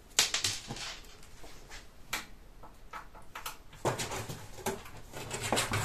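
Scattered clicks, taps and scrapes of a screwdriver and hands at the screws of a metal computer case's side panel, with a sharp click just after the start and another about two seconds in, and a busier run of taps and scrapes in the second half.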